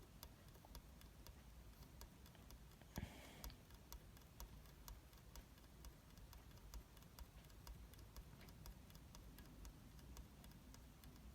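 Near silence: room tone with faint, irregular ticks several times a second, and a brief soft rustle about three seconds in.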